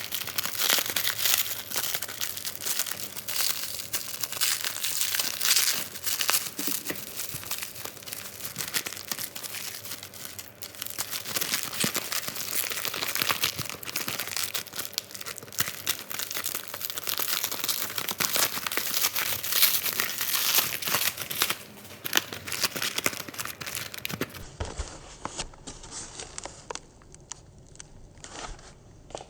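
Continuous crinkling and rustling with many small crackling clicks, like material being crumpled and handled; it quietens about 24 seconds in.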